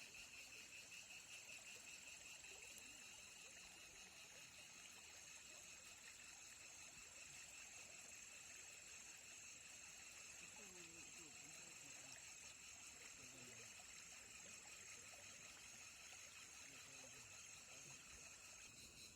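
Faint steady chorus of insects such as crickets or cicadas, a high-pitched pulsing trill, with faint distant voices about halfway through.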